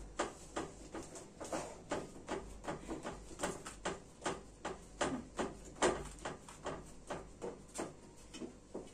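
Hands pressing and spreading pizza dough out in a round baking tray: a string of light, irregular taps and knocks, about two a second.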